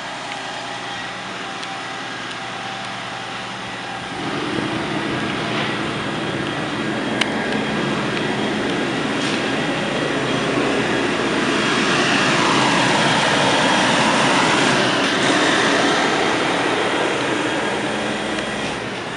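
Freightliner garbage truck's engine running. It steps up in loudness about four seconds in, swells to its loudest about two-thirds of the way through, then eases off.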